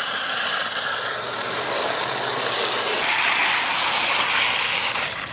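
Shovels scraping mud and storm debris across wet asphalt: a continuous rough scraping that shifts lower in tone about three seconds in.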